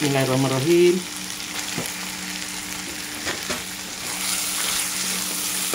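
Raw chicken pieces sizzling in hot fried spice paste in a wok, with a wooden spatula scraping and knocking against the pan a few times as they are stirred in. The sizzle grows brighter about four seconds in.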